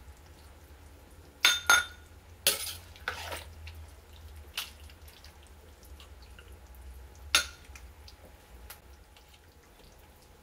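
Soup being ladled into a ceramic bowl: a metal utensil clinks sharply against the pot and bowl several times, with liquid splashing and dripping as each scoop goes in. The loudest clinks come in a quick cluster about one and a half to two seconds in.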